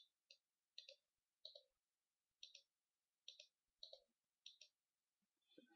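Computer mouse buttons clicking faintly, about a dozen clicks, mostly in quick pairs, as curves and surfaces are picked on screen.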